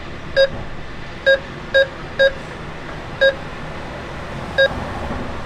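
ATM keypad beeping as a withdrawal amount is keyed in. Six short beeps, all on one pitch and at uneven intervals, each confirming a key press, over a steady background hiss.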